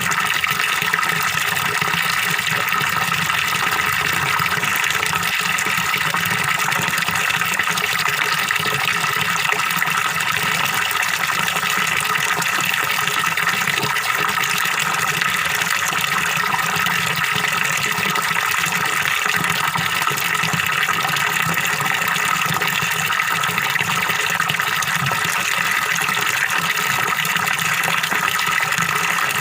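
Small waterfall splashing and gurgling steadily into a fish pond, the falling water making an even, unbroken rush.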